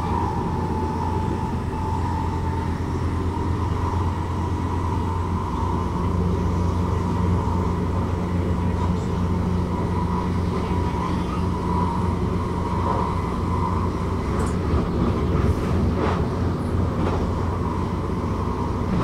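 Commuter train running at speed, heard from inside the carriage: a steady low rumble of wheels on the track with a constant hum over it, and a few light clicks about three quarters of the way through.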